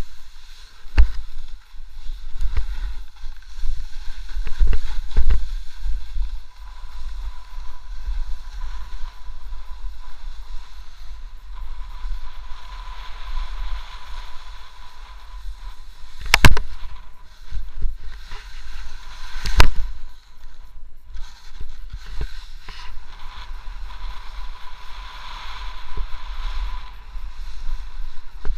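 Snowboard sliding and scraping over crusty snow, heard through an action camera riding along, with a low rumble of wind on the microphone. Sharp knocks come with bumps in the snow, the loudest two about 16 and 20 seconds in.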